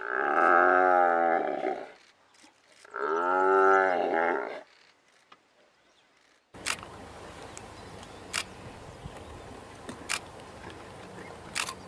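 Cape buffalo bellowing in distress as lions hold it down: two loud, drawn-out bellows about two seconds each, with a short gap between. After them comes a quieter steady rumble with a few scattered sharp clicks.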